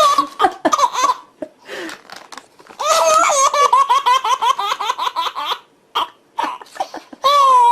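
Baby laughing in bursts, with a long run of quick, breathy laugh pulses about three seconds in and a drawn-out high squeal near the end.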